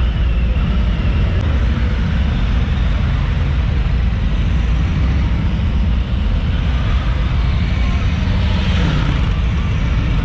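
A Harley-Davidson Tri Glide Ultra trike's big-twin V-twin engine running while the trike rolls slowly. It makes a steady, loud low rumble.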